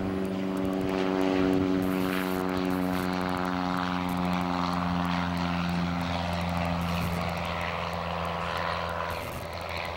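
Light propeller airplane taking off and climbing away, its engine drone loudest about a second and a half in, then slowly dropping in pitch and fading.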